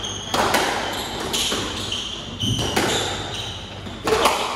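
A squash rally: sharp knocks of the ball off the rackets and the court walls, several times, echoing in the enclosed court, with short high squeaks of the players' shoes on the wooden floor between the shots.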